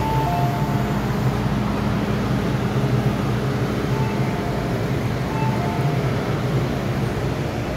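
MTR M-Train electric multiple unit running as it draws along the platform, a steady low hum with rumble and running noise. A short two-note chime, high then low, sounds three times: at the start, about four seconds in, and a second and a half later.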